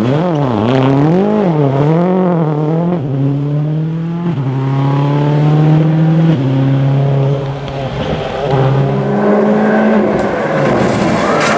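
Rally car engine at high revs. For about the first three seconds the revs swing quickly up and down; after that it pulls at steady revs, with the pitch jumping abruptly at each of several gear changes.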